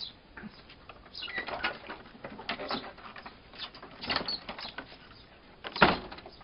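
Wooden kennel door knocking and scraping against its frame as a dog pushes it shut, with several light knocks and one loud bang near the end as the door closes.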